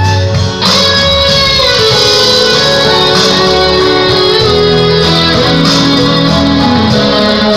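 Instrumental backing music with guitar, played while the bamboo flute rests.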